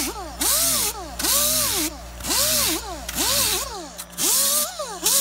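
Air-powered angle grinder with a coarse 24-grit disc sanding Styrofoam, run in short repeated bursts a little under a second apart. Its whine rises and falls in pitch with each burst, over a loud hiss.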